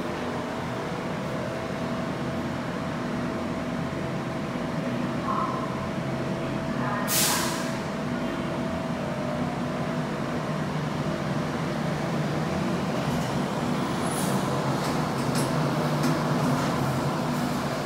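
Bukit Panjang LRT rubber-tyred light rail train running with a steady electric hum, a short loud hiss of air about seven seconds in, and a few clicks near the end.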